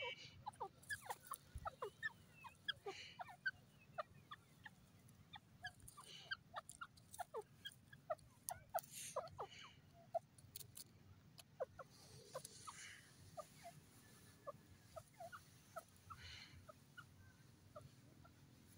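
Grey francolin giving many faint, short chirping and clucking notes, scattered irregularly, with a few soft clicks among them.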